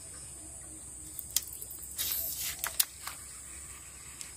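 Steady high-pitched insect buzzing at the riverside, with a few sharp clicks and a short hiss around the middle from a fishing rod and spinning reel being handled.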